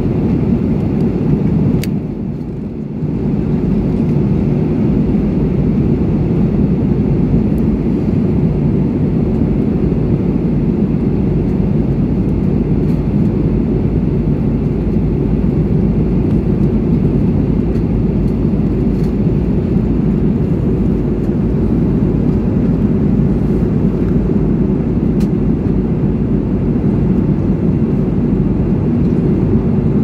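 Steady deep roar of a jet airliner's cabin in cruise flight: engine and airflow noise. A sharp click comes about two seconds in, and the roar is briefly quieter for about a second after it.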